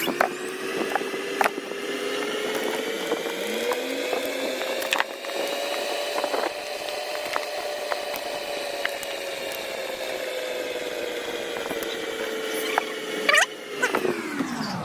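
An electric motor whining as it spins up, runs steadily for about twelve seconds with light clicks, then winds down near the end.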